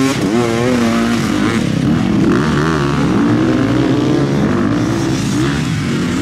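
Several enduro motorcycle engines running. In the first second or so, one has its throttle blipped in quick rising and falling revs while the others hold a steady note.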